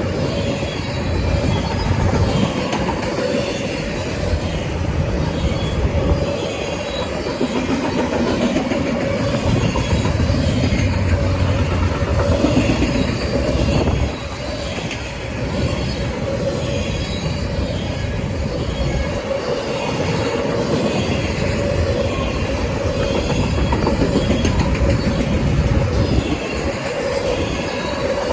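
Norfolk Southern freight train rolling past at close range, its wheels clacking over the rail joints, with a steady high wheel squeal and a low rumble that swells and eases.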